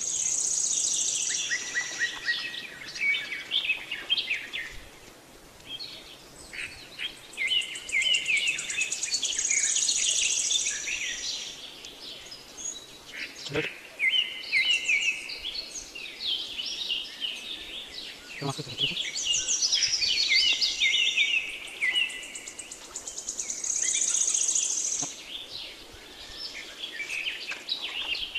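Many birds chirping and singing in woodland, with a high trill that rises and fades every several seconds. Two brief knocks come about halfway through.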